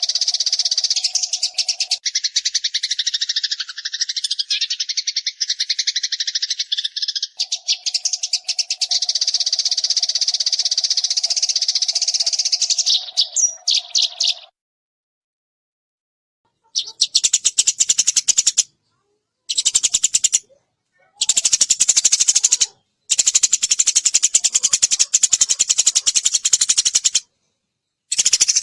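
Eurasian tree sparrow (burung gereja) chattering in fast, tightly packed chirps, played as a songbird tutor recording. A steady low hum sits under the chatter in the first half. About halfway through the chatter stops for a couple of seconds, then returns in several separate bursts.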